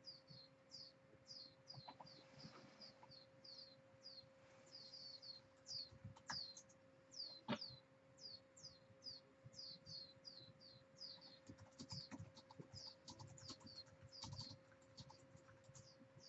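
Faint, rapid chirping of a small bird, short high downward chirps about three a second, over a steady faint hum, with a few scattered faint clicks.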